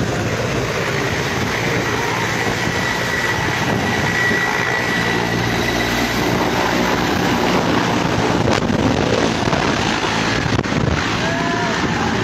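Mi-17-type military transport helicopter running close by, its rotor and turbines making a steady dense noise with a thin high whine, as it lifts off and passes low overhead.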